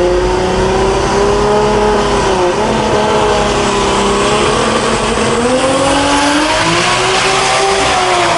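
Drag-racing car engine at high revs, accelerating hard, its pitch dropping at a gear change about two and a half seconds in and again near the end, with a rising hiss of tyre and road noise.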